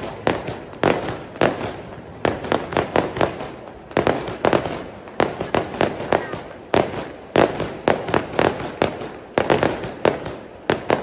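Fireworks display: aerial shells bursting in quick irregular succession, with sharp bangs often two or three a second, some in tight clusters.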